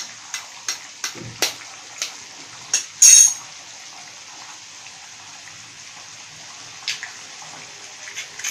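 A raw egg struck against the rim of a small steel bowl: a few light taps, then one sharp crack with a brief metallic ring about three seconds in. Under it, the steady bubbling hiss of a curry boiling on the stove.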